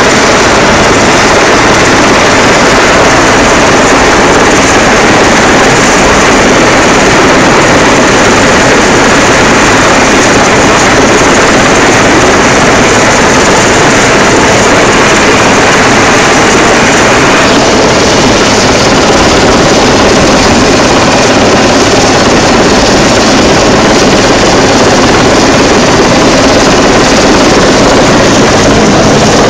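Coastguard helicopter hovering low overhead: very loud, steady rotor and turbine noise with downwash buffeting the microphone.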